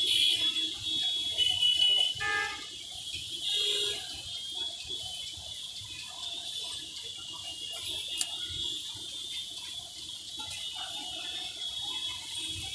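Busy street din, with brief horn-like tones in the first few seconds and then a steady background noise.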